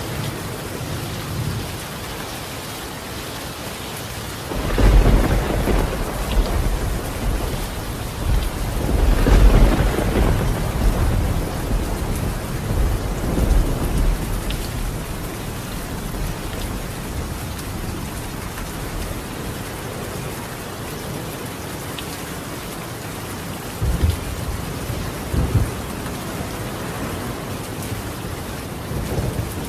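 Steady rain drumming on a colonial clay-tile roof. A long roll of thunder builds about five seconds in, peaks a few seconds later and fades away, and two short low rumbles follow near the end.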